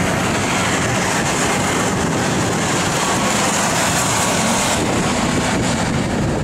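Racing snowmobiles running at speed around an ice oval, a dense steady engine and track noise. The high-pitched part eases about five seconds in.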